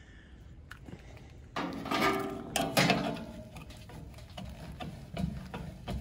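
Rusty blower-wheel hub being worked back and forth on a freshly unseized motor shaft: metal scraping with a brief squeal about two seconds in, then a series of light clicks and knocks.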